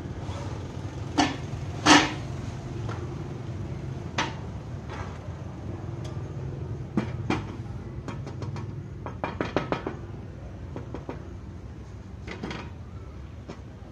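Wooden window frames being handled and set down on a tile floor: sharp wooden knocks and clatters, the loudest about two seconds in, and a quick run of small clicks a little after the middle, over a steady low hum.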